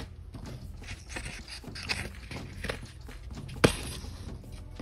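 Paper scratch-off lottery tickets being handled and moved on a tabletop: soft rustling and light scrapes, with one sharp tap about three and a half seconds in.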